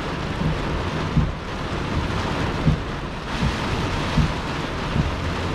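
Heavy rain pouring on a truck in gusting wind, heard from inside the cab, with a low thump about every second and a half.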